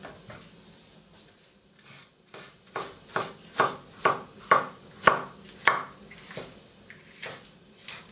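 Kitchen knife slicing king oyster mushroom on a wooden cutting board: a run of about ten cutting strokes, roughly two a second, starting a couple of seconds in.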